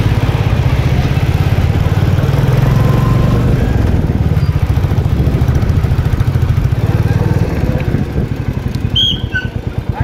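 Royal Enfield single-cylinder motorcycle engine running steadily as the bike is ridden, its rapid low pulsing heard from the saddle. Near the end the throttle eases off and the engine note drops as the bike slows.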